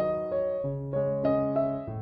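Background music: a gentle piano or electric-piano tune, its notes changing about every half second.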